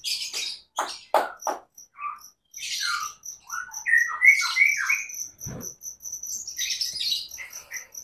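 Songbirds singing and chirping: a high thin chip repeated about four to five times a second, with a short run of varied whistled notes about four seconds in.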